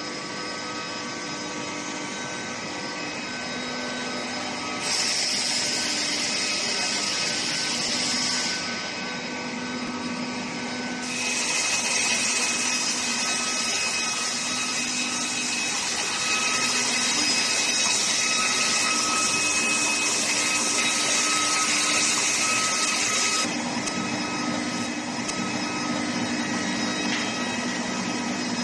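Steady machinery noise of an induction heating and pipe rolling line, with several steady whining tones. A loud hiss comes in twice, briefly about five seconds in and then for about twelve seconds from about eleven seconds in, cutting off suddenly each time.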